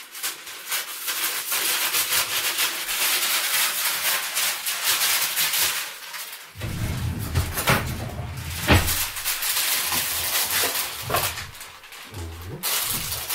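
Baking paper crinkling and rustling as a piece is cut from the roll with scissors and then folded, with a few sharp crackles of the stiff paper about a second apart midway through. Music plays along with it.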